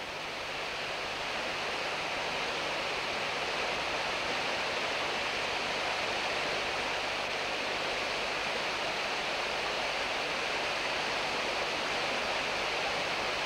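Water of a rocky mountain stream rushing steadily over stones.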